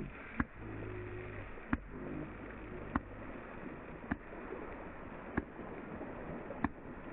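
Cyclocross bike tyres swishing through a shallow muddy puddle, a steady wash of water noise. A sharp tick comes about every second and a quarter, six times, and a low steady hum is there for the first three seconds.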